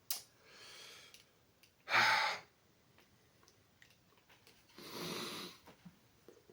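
A man's breaths: a soft one early on, a short, sharp and loud one about two seconds in, and a longer breathy one around five seconds in. He is working up air before forcing out a big burp.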